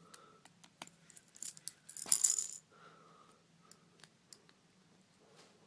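Tiny hex screws clicking and rattling in a metal magnetic parts bowl: scattered light clicks, with a brief louder rattle about two seconds in.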